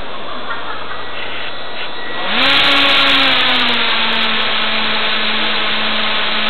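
Propeller motors of a radio-controlled advertising blimp spinning up about two seconds in, heard close from the onboard camera: a loud hum that rises quickly in pitch, eases slightly lower and then holds steady, over the steady noise of a large exhibition hall.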